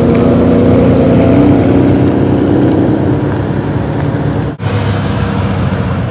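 Ferrari 599 GTB's V12 engine running as the car pulls away at low speed, loudest in the first two seconds and easing off after. About four and a half seconds in, the sound breaks off abruptly for an instant and an engine runs on after it.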